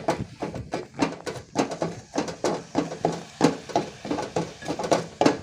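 Spoon stirring and scraping in a small pot of white ginger juice and palm sugar as it boils down to a thick syrup: quick, irregular knocks and scrapes, several a second.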